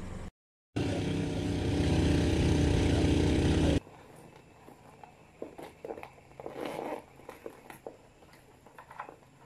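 A motor vehicle engine running steadily close by, growing a little louder, then cut off abruptly after about three seconds; after it, quiet room sound with scattered light knocks and rustling.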